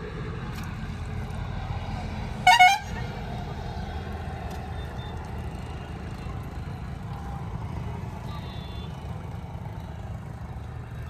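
A bus horn gives one short, loud blast about two and a half seconds in, over a steady low rumble.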